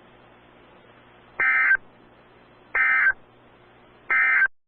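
NOAA Weather Radio EAS end-of-message data signal: three short bursts of two-tone digital screech about a second and a half apart, marking the end of the broadcast test message, over faint radio hiss.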